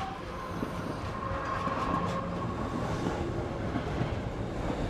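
Electric local train running at speed, heard from inside the coach: a steady rumble of wheels on rail with clickety-clack over the joints and a faint steady whine.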